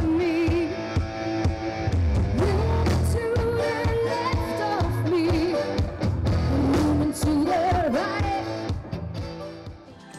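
A rock band playing, with a woman singing lead over drums and electric guitar. The music fades out near the end.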